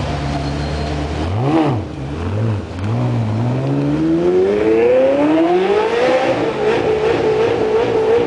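Ferrari 360 Modena's 3.6-litre V8 idling, then given a sharp blip of the throttle about a second and a half in and a smaller one after it. It then climbs steadily in revs for about three seconds and holds at the rev limiter, the pitch bouncing about three times a second.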